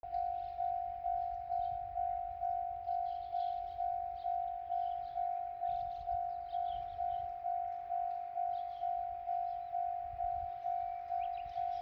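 Japanese level crossing warning bell ringing: a repeated electronic 'kan-kan' tone about twice a second, each strike fading quickly, over a low rumble.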